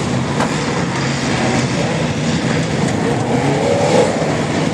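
Off-road 4x4 truck engines running with a steady low drone, one of them rising in pitch briefly about three and a half seconds in.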